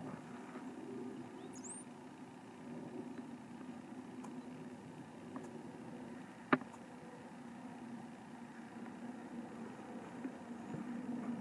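One sharp click, about halfway through, of an iron or wedge striking a golf ball on a short chip shot. A steady low outdoor rumble runs underneath.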